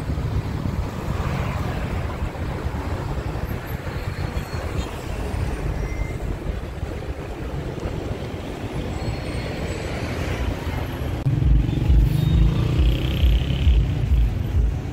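Busy city street traffic: a steady rumble of car engines and tyres. A louder, uneven low rumble sets in about eleven seconds in.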